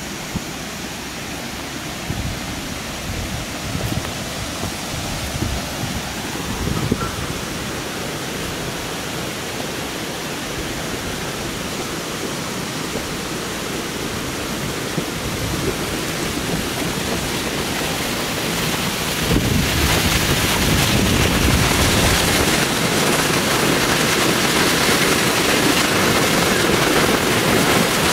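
Rushing water of a waterfall, a steady roar that grows louder about two-thirds of the way through, with some low rumbles of wind on the microphone early on.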